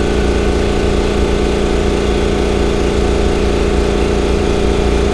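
Makita MAC2400 Big Bore air compressor running steadily, its pump charging the tank.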